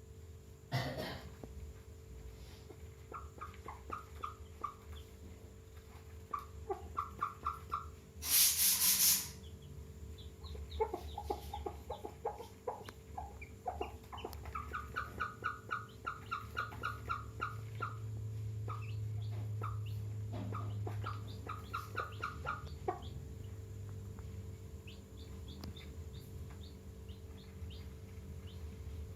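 Chickens clucking in quick runs of short, evenly repeated notes, typical of a hen with her chicks. About eight seconds in there is a brief, loud burst of noise lasting about a second.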